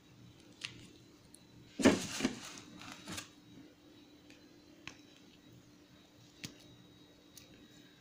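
Bench handling noise from a sharpened metal pipe being twisted by hand through a rubber gasket held in locking pliers on a wooden board: scattered light clicks, with a brief louder clatter about two seconds in and a smaller one a second later.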